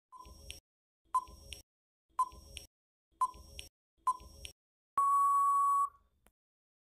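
Quiz countdown timer sound effect: five short beeps about a second apart, then a longer steady beep of about a second that marks time-out.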